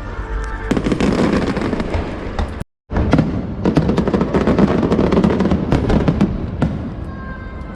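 Aerial fireworks bursting in a dense run of crackles and pops over loud show music; the sound cuts out completely for a moment just under three seconds in.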